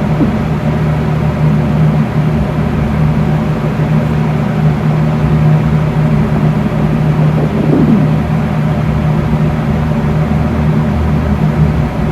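An empty, hungry stomach growling over the steady hum of a fan, with one falling, pitched growl about eight seconds in.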